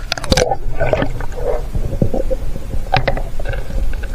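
Water sloshing and bubbling around a half-submerged action camera as a swimmer goes under the surface, muffled, with a few sharp knocks against the housing.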